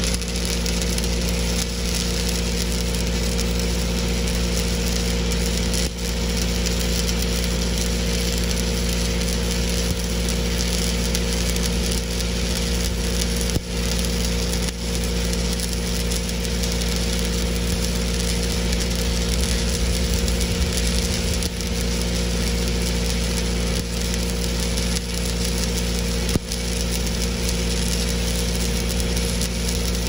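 Stick-welding arc with a 7018 electrode crackling and sizzling steadily on steel, over a steady low hum.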